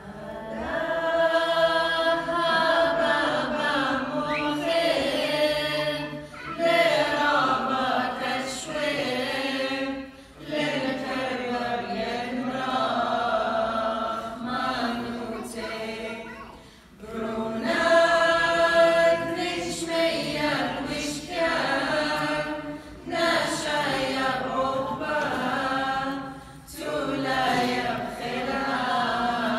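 Small mixed choir of men's and women's voices singing an Assyrian Church of the East hymn a cappella, in long held phrases with short pauses between them.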